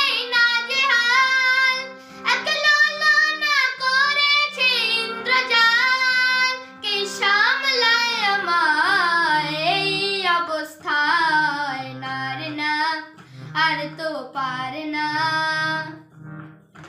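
A boy singing a Bengali song over steady backing music, with short pauses for breath.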